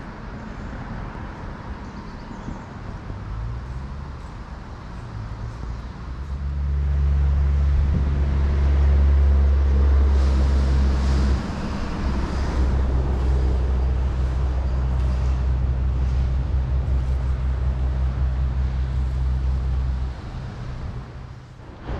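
A loud low rumble swells about six seconds in, holds with a brief dip, and drops off abruptly near the end, over a steady background hiss.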